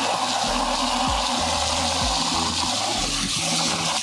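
Garden hose spray nozzle jetting water into a plastic bucket, a steady hiss of water filling the bucket and stirring in powdered fertilizer.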